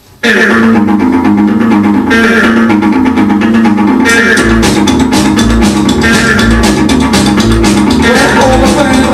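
A rock and roll song starting suddenly after a short pause, with a guitar and bass intro. Regular low beats come in about four seconds in, and there is no singing yet.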